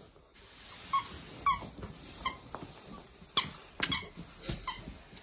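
Malamute puppy giving a few short, high squeaky whines, with several sharp taps in between.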